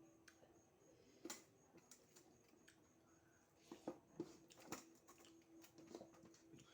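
Quiet chewing and mouth sounds: sparse soft clicks and smacks, a few more together around four seconds in, over a faint steady hum.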